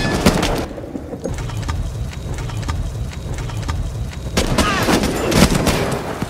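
Small-arms gunfire: a rapid, irregular string of shots over a low rumble, with a voice shouting about four and a half seconds in.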